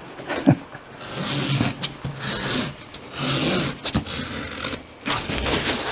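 Rubbing and scraping in several short bursts with a few sharp clicks, as a leather bag is handled.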